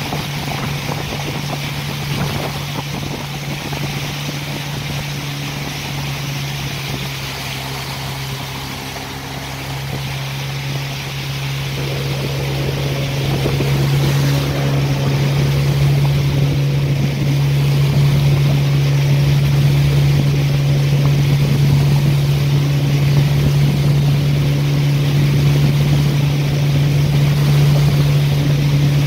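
Motorboat engine running with a steady hum, with rushing water and wind noise over it. The engine grows louder between about a third and two-thirds of the way through, then holds.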